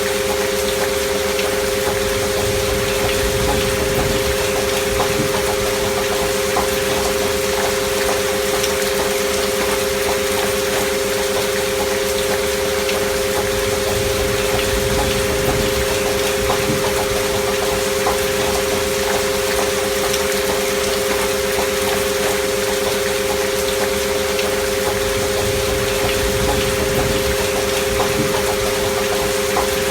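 Steady rain noise with two continuous pure sine tones held under it, a binaural 'healing frequency' tone track of 528 Hz and 639 Hz tones with an alpha-wave beat.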